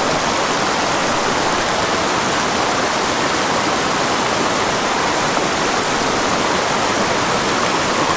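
Small mountain creek rushing over boulders in a shallow riffle: a steady rush of white water.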